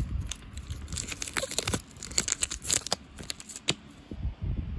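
Crinkling and rustling of a small green wrapper as the key packed inside it is handled and pulled out, in irregular sharp crackles.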